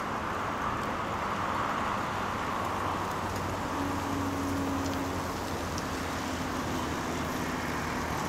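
Steady traffic noise from a busy multi-lane road, with a long column of bicycles rolling past. A faint, steady low hum joins about four seconds in.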